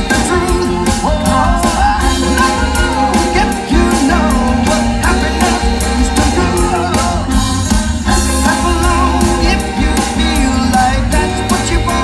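Live rock band playing, with a singer over electric guitar, keyboards, bass and a steady drum beat.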